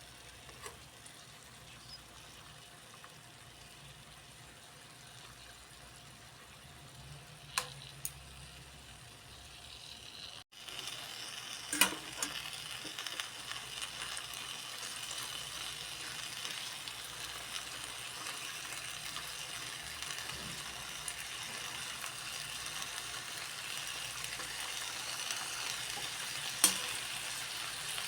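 Food frying in hot oil in a pan, a steady sizzle. It is faint at first, then much louder after a sudden break about ten seconds in. A few sharp clicks of a utensil against the pan come through it.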